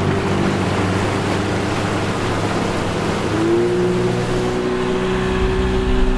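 Mercury outboard motor running with the boat under way, over a rush of water. About three and a half seconds in, its pitch rises and then holds steady as it speeds up.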